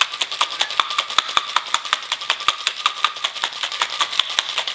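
Ice cubes rattling inside a stainless steel cobbler cocktail shaker that is shaken hard in a rapid, even rhythm to chill the drink.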